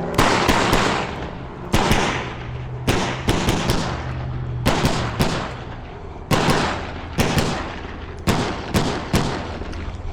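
Pistol fire during a practical-shooting stage run: many sharp shots, mostly in quick pairs and short strings, with brief pauses between groups as the shooter moves from target to target. The shots echo off the range.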